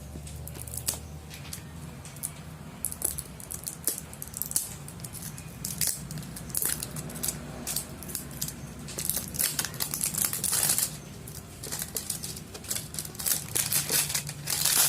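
Packaging of a newly delivered phone being opened by hand: a run of scrapes, clicks and crinkling, tearing noises, busiest near the end, over a steady low hum.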